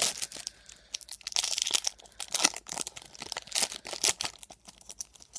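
Clear plastic wrapper of a trading-card hanger pack crinkling in irregular bursts as the opened pack is handled and tipped to get the cards out.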